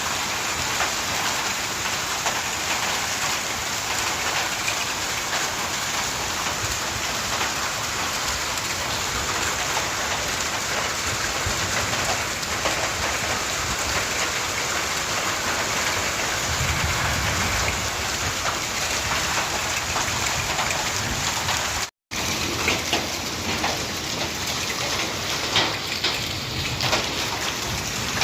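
Heavy rain with hail pouring down steadily, a dense hiss of drops and stones striking surfaces, with a low rumble a little past the middle. The sound cuts out for an instant about two-thirds of the way through, and after that sharper separate strikes stand out.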